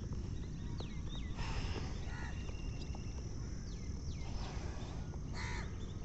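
Crows cawing: harsh calls about a second and a half in, again around two seconds, and loudest near the end, with a few short falling whistles from other birds, over a steady low rumble.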